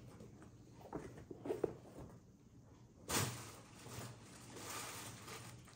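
Rustling and handling of a parcel bag as the next item is taken out: a few soft knocks, then a longer rustle from about halfway in.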